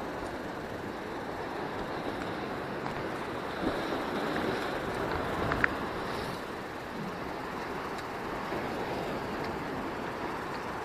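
Surf washing over shoreline rocks, with wind rumbling on the microphone, as a steady rushing noise. A single sharp click sounds a little past halfway through.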